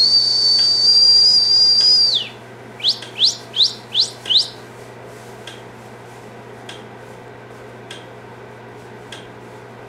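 A person whistling: one long, steady, high note that drops off at the end, then five short, quick, rising whistles.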